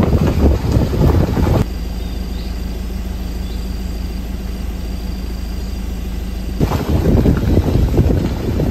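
Wind buffeting the microphone of a moving vehicle. It drops out about one and a half seconds in to a steadier, quieter low hum with a faint thin high tone, then the wind rumble returns near the end.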